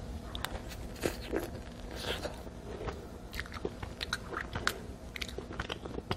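Biting and chewing a soft, sugar-dusted, cream-filled doughnut, with many small, irregular mouth clicks.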